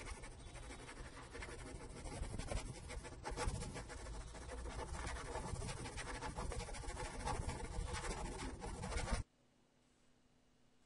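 Marker pen scratching continuously as it writes out handwriting, stopping abruptly about nine seconds in.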